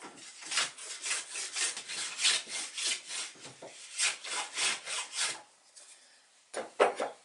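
Small hand plane taking quick short strokes along a thin fir stick, about two strokes a second, as a toy mast is trimmed to size. The strokes stop after about five seconds, and two sharp knocks follow near the end.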